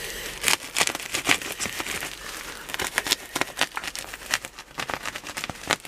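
Shipping packaging being handled and opened, with a dense, irregular crinkling and crackling.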